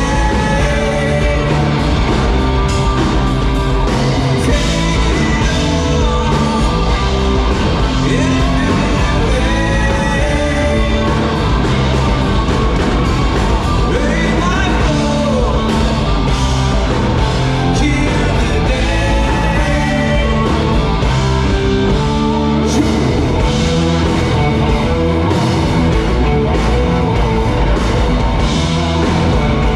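Live rock band playing a loud song with a singer, the full band running steadily and densely throughout.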